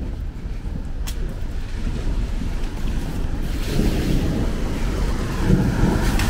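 Rain-wet street ambience: a steady low rumble, then a vehicle's tyres hissing on the wet road, growing louder from about halfway through.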